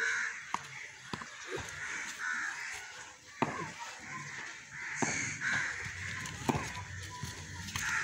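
Crows cawing repeatedly. A single sharp knock about three and a half seconds in is the loudest sound, with a few fainter knocks around it.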